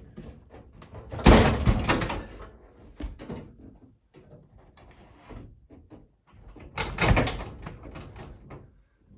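Over-the-range microwave being worked onto homemade wall hook brackets: metal knocking, scraping and rattling against the brackets and cabinet, with two loud clunks, about a second in and near seven seconds in, and lighter knocks between.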